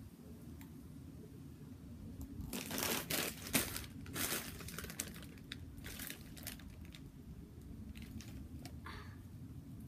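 Plastic candy bag being handled and crinkling in several rustling bursts, the loudest cluster a few seconds in, with softer rustles later.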